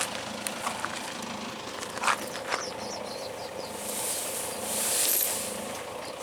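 Diesel engine of heavy farm machinery running steadily, a low even hum, with two short knocks a little over two seconds in and a brief high hiss near the end.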